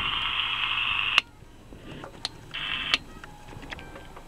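Radio receiver hiss through a small loudspeaker, cut off with a click about a second in, then a short burst of the same hiss and a few small switch clicks.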